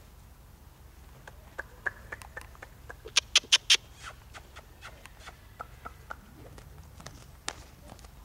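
A run of short, sharp clicks, with four loud ones in quick succession about three seconds in, over a faint low hum.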